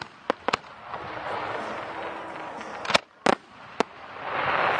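Fireworks going off: about five sharp bangs of bursting shells, with crackling between them and a swell of noise near the end.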